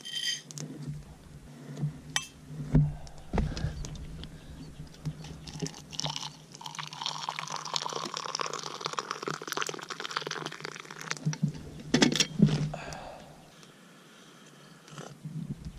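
Hot water poured from a kettle into an enamel mug of instant coffee granules, a steady hiss lasting several seconds, after a few small clicks of the spoon at the start. Two sharp clinks come right after the pour.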